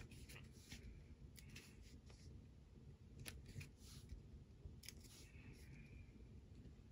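Near silence with faint, scattered clicks and ticks of paper stickers being lifted and pressed onto a planner page with a pointed sticker tool.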